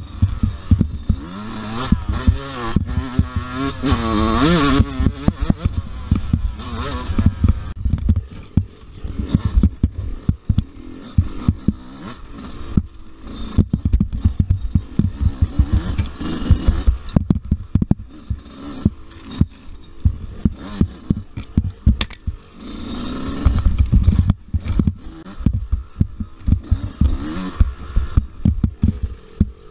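Dirt bike engine revving up and down over a rough woods trail, its pitch rising and falling through the first several seconds. After that come frequent sharp knocks and clatter as the bike hits roots and ruts.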